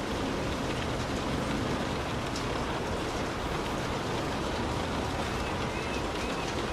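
Light rain falling on a car, heard from inside: a steady hiss with scattered drops ticking.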